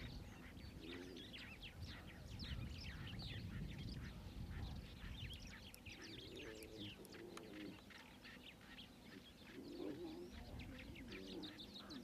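Faint chorus of small birds chirping rapidly and continuously, with a few soft, lower calls about a second in, around the middle and near the end.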